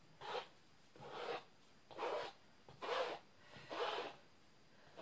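Toothed comb dragged through wet titanium white acrylic paint on a canvas, spreading it evenly: five short scraping strokes, about one a second.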